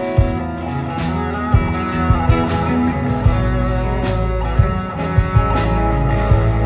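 Live rock band playing: an electric guitar solo over bass guitar and drum kit.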